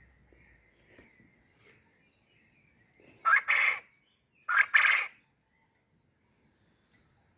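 A male quail crowing twice, about a second apart, each crow a short burst of a few rapid, loud notes, with faint soft chirps before them.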